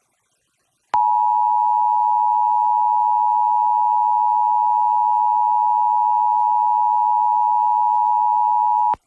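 Emergency Alert System two-tone attention signal, the 853 Hz and 960 Hz tones sounded together, relayed by an FM broadcast station for a Required Monthly Test. A steady, loud dual tone that starts about a second in, holds for about eight seconds, and cuts off suddenly near the end.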